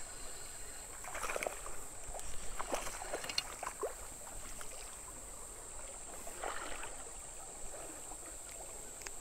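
A few faint water splashes as a hooked bass is brought in and handled in shallow creek water, over a steady high-pitched insect chorus.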